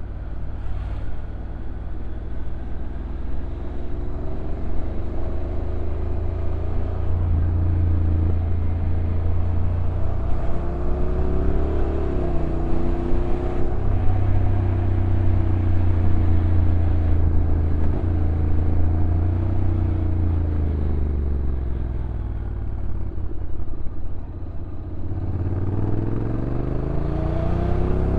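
Honda NC750X DCT's parallel-twin engine heard from the rider's position while riding downhill, its pitch rising and falling with the throttle and the automatic gear changes. It drops low about three quarters of the way through, then climbs steadily near the end as the bike speeds up.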